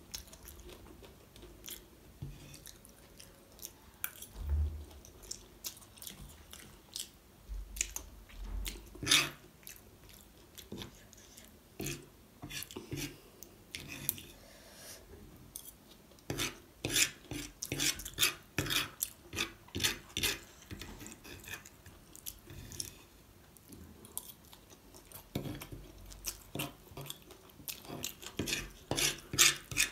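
Close-miked chewing and biting of fried momos and Hakka noodles, with wet mouth sounds. Sharp clicks and scrapes come from a metal fork against a wooden board as noodles are twirled up, in quick runs about halfway through and again near the end.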